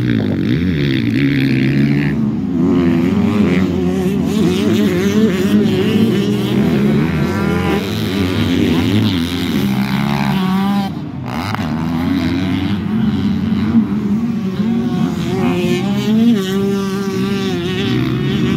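Several motocross dirt bikes racing round a dirt track, their engines revving up and down in overlapping waves as they accelerate, shift and pass.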